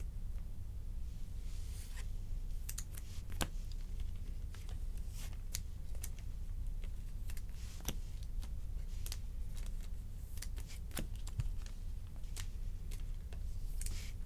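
Trading cards being handled and sorted on a tabletop: scattered light clicks and taps as cards are picked up, shuffled and set down, over a steady low hum.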